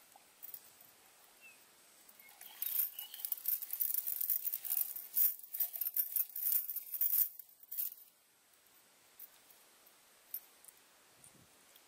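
Steel link chain rattling and clinking as it is handled and dragged over grass: quick irregular metallic clicks from about two seconds in until about eight seconds.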